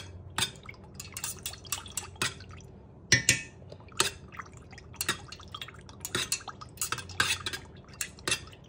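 A metal spoon stirring melted candle wax in an aluminium pouring pitcher, clinking irregularly against the pitcher's sides, with the sharpest knocks about three seconds in.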